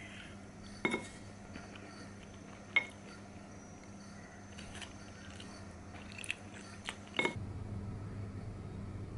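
Wooden spoon knocking against a ceramic plate while eating: a handful of sharp, irregular clinks, each with a brief ring from the plate.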